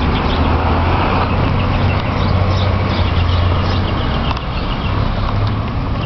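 Steady low rumble of outdoor street noise, with faint bird chirps high above it.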